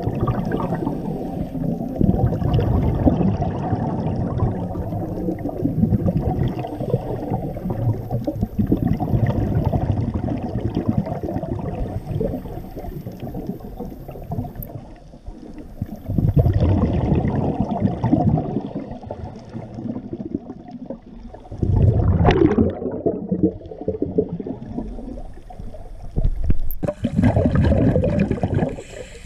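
Muffled water sloshing and bubbling heard through an underwater camera housing just below the surface, coming in surges every few seconds.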